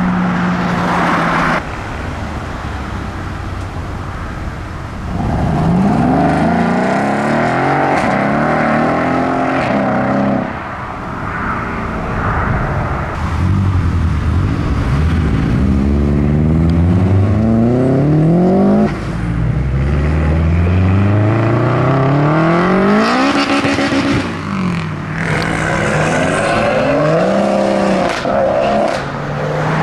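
Modified cars accelerating hard away one after another. The engines rev up with climbing pitch several times, and the pitch drops sharply at each gear change.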